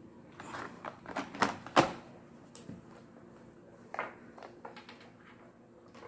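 Scattered light knocks, clicks and rustles of items being handled and set down during unboxing, the loudest a sharp knock a little under two seconds in.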